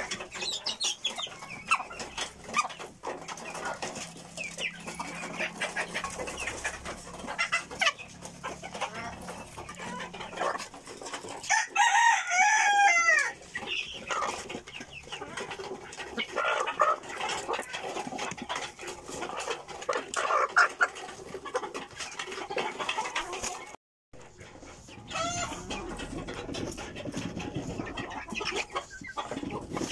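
A flock of chickens clucking, with a rooster crowing once about twelve seconds in, the loudest sound. The sound drops out for a moment near the middle.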